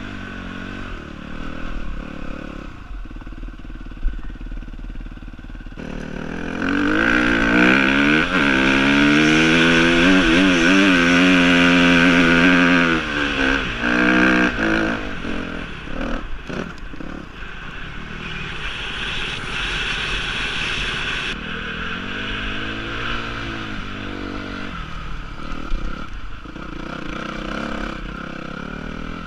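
Suzuki dirt bike engine ridden off-road at varying revs. For about six seconds in the first half it is loudest, revving hard under load up a steep climb, its pitch rising and falling. Otherwise it runs at lower revs with some clatter.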